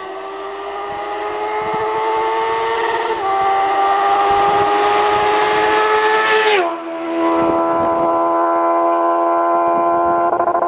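Honda CB 650F's inline-four engine through a Jeskap full 4-2-1 exhaust, revving hard with a high-pitched engine note that climbs steadily, steps down slightly about three seconds in and climbs again, then drops sharply a little past the middle and holds steady at a lower pitch.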